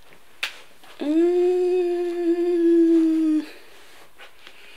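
A woman humming one steady, held note for a couple of seconds, starting about a second in.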